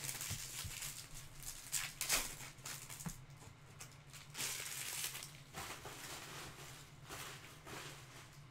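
Trading card packs and cards being handled: wrappers crinkling and tearing and cards rustling, in irregular bursts with a few sharp clicks, over a faint steady low hum.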